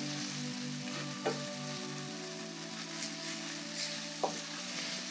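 Onions and ginger-garlic paste frying in oil in a stainless steel pan, a steady sizzle, while a wooden spoon stirs and knocks against the pan about three times.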